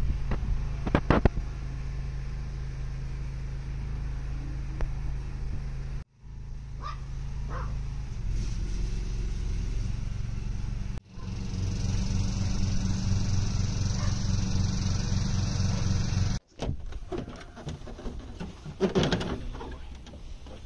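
Ride-on lawn tractor engine running steadily, in several clips joined by abrupt cuts, one of them with a steady hiss over the engine. Near the end the engine gives way to a quieter stretch with a few short, sharp sounds.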